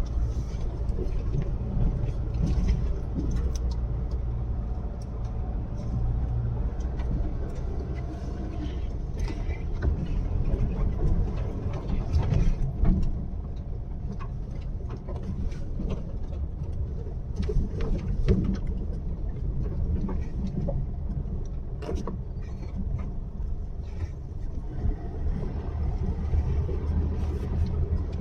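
Car driving along a rough road: a steady low rumble from engine and tyres, with scattered knocks and rattles.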